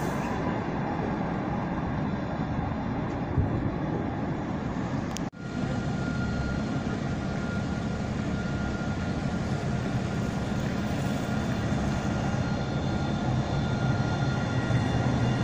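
Electric city trams running on street track, a steady rumble of wheels on rail. After a cut about five seconds in, a steady high whine runs over the rumble.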